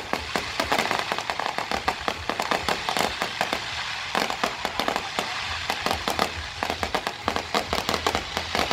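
Aerial fireworks display: shells bursting overhead in a dense, unbroken string of bangs and crackles.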